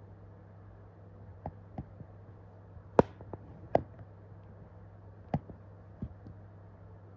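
A handful of short, sharp taps and clicks at irregular moments, the loudest about three seconds in, over a steady low hum.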